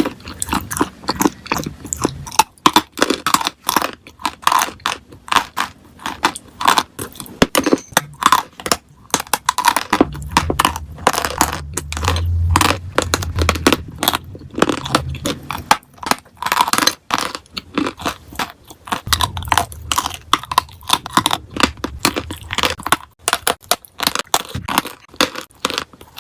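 Close-up crunching and crackling of dry clay coated with paste: a rapid, uneven stream of small cracks, with a low rumble underneath now and then.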